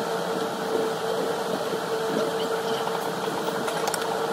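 Steady whirring hum with one constant tone, typical of the blower of a hot air rework station. Such a station is used to soften an iPhone's adhesive before it is opened.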